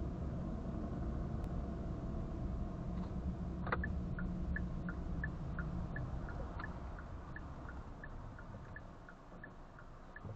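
Car interior road and engine rumble picked up by a dash cam microphone. About a third of the way in there is a click, followed by a turn signal ticking about three times a second, while the rumble fades as the car slows near the end.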